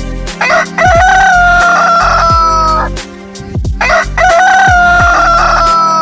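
Rooster crowing twice, each crow one long, slightly falling call lasting over two seconds, the first about half a second in and the second about four seconds in. A music track with a heavy, repeating bass beat plays underneath.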